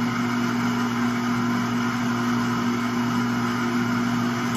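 Electric shop hoist's motor running with a steady hum, moving its hook out of the way; it cuts off at the end.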